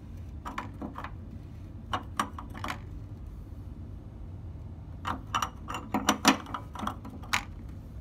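Scattered metal clinks and clicks from a tubular heating-element wrench turning a new water-heater heating element into the tank. The clicks come in short irregular clusters and are busiest in the second half.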